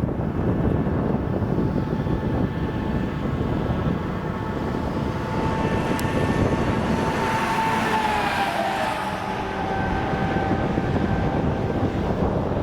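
Strong wind buffeting the microphone, a steady rumble. A faint pitched tone runs under it and dips in pitch about eight seconds in.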